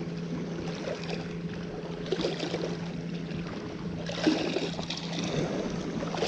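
A boat engine hums steadily under lapping, trickling water, with a few light knocks and splashes about two and four seconds in.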